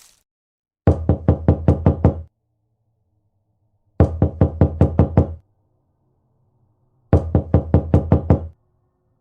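Rapid knocking in three bursts of about seven hard knocks each, a few seconds apart.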